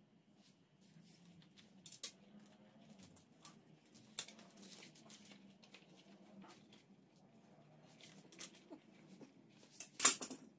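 Hands working a slightly inflated inner tube and tyre onto a mini velo's rim: scattered light scratchy rubbing and small clicks of rubber and parts being handled, with a sharp knock just before the end, the loudest sound.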